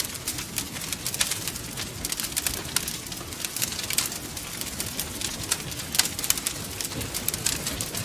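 Wood fire crackling, with frequent irregular sharp pops and snaps over a steady low hiss and rumble.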